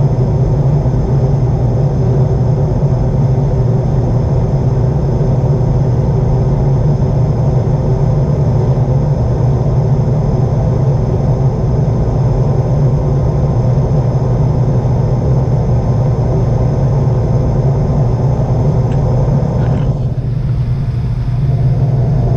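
Gas furnace running after restart, its burners lit and the draft inducer motor going: a loud, steady, low-pitched rush and hum. The burners stay lit, a sign that the freshly cleaned flame sensor is now proving the flame.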